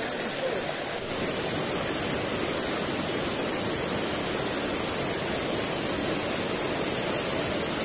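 Rushing water of a rocky mountain creek, rapids and small cascades tumbling over boulders in a steady hiss, which shifts slightly about a second in.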